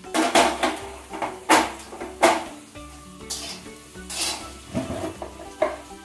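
Metal spatula stirring food in a large metal pot, scraping and clanking against its sides in a run of sharp knocks, the loudest in the first two and a half seconds. Background music plays underneath.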